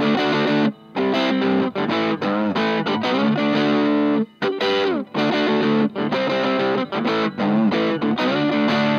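Electric guitar played through a 2-watt Little Rebel kit amp into a Jensen CR8 speaker in an old Sunn cabinet: ringing chords and slid notes, with short breaks about a second in and about four seconds in. The amp still has its LED clipping diodes in circuit, which give the tone a rough edge that the player finds a bit harsh.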